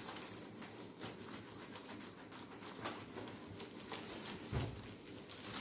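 A whiteboard being erased: a run of irregular soft rubbing strokes and light knocks against the board.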